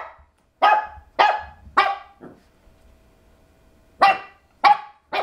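Shih Tzu puppy barking at its own reflection in a mirror: short, sharp barks, three or four in quick succession, a pause of about two seconds, then three more.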